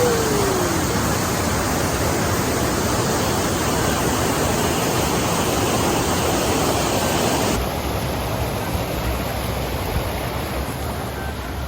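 Waterfall rushing: a loud, steady wash of falling water, dropping slightly in level about eight seconds in.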